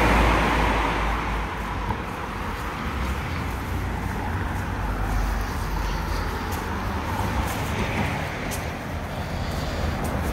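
Road traffic: a car passing close by, loudest at the start and fading over the next couple of seconds, then a steady hiss of traffic on the road with a low rumble underneath.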